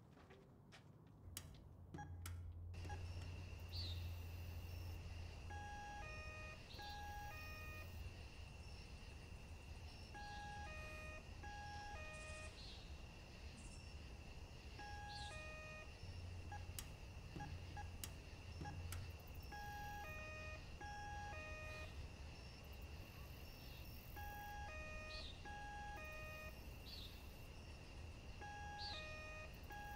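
A repeating pattern of short electronic beeps at several pitches, like a simple tune, comes round every four to five seconds over a steady high whine and a low hum.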